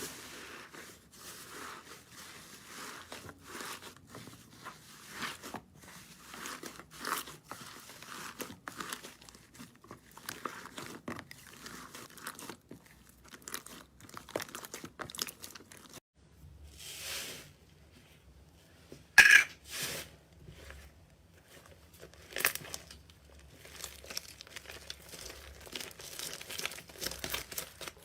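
Slime being pressed and squeezed by hand, with dense small crackles and pops, and one much louder sharp pop a little past the middle.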